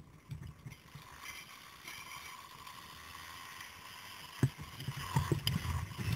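Zipline trolley pulleys running along a steel cable, a steady whirring hiss with a faint level whine. A sharp click comes about four and a half seconds in, and low rumbling buffets the microphone after it.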